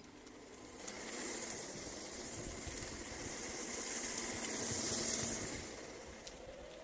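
Hiss of wheels rolling on pavement as something passes by, swelling from about a second in, loudest near five seconds, then fading away.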